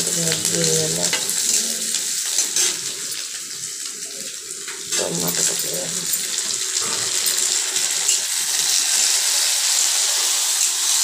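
Chopped onions and tomatoes sizzling in hot oil in a kadai, stirred with a steel spatula: a steady frying hiss.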